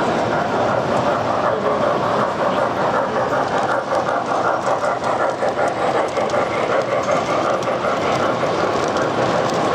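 O-gauge model trains running on the layout's track: a steady rumble with a rapid wheel clatter.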